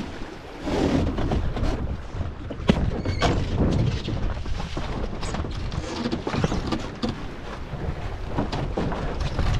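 Wind buffeting the microphone aboard a sailing dinghy, with irregular knocks, clicks and rattles from the boat's fittings, sheets and hull as the sails are handled through a gybe; one sharper knock comes near three seconds in.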